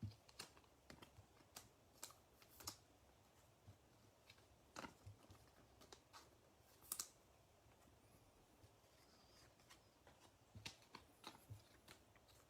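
Near silence broken by about a dozen faint, sharp clicks and taps spread unevenly, with a quiet gap of a few seconds after the middle.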